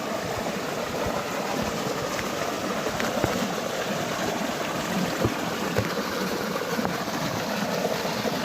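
Stream water flowing steadily, with a few faint clicks and knocks.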